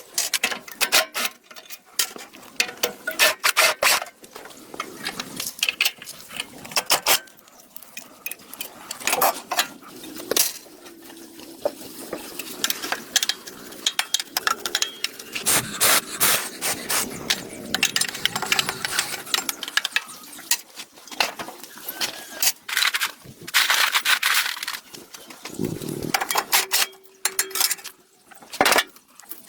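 Hand work on metal: irregular knocks, clinks and scraping of tools against iron parts, with a brief steady hum near the end.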